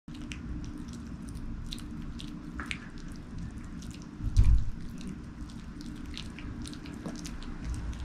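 Small dogs (Maltese) gnawing on hard chew sticks, a scatter of short crunching clicks from their teeth. A single loud low thump comes about halfway through.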